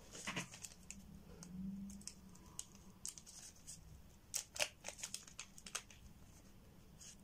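Small plastic bag crinkling and rustling as gloved hands handle and open it, with scattered light clicks; a quick run of sharper crinkles comes a little past halfway.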